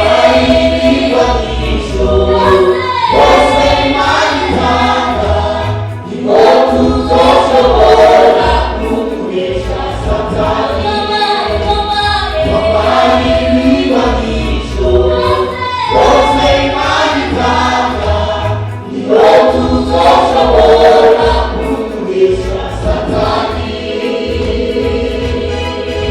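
Church choir singing a gospel song in full voice, phrase after phrase, over a steady low bass accompaniment.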